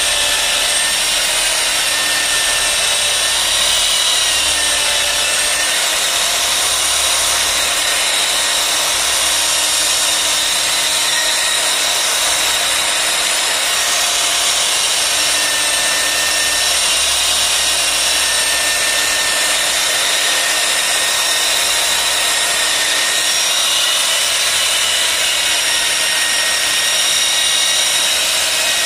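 Electric polisher running a sanding disc over wet glass to grind out fine swirl scratches: a steady motor whine with the hiss of the pad on the glass, its pitch wavering slightly now and then as the pad is worked.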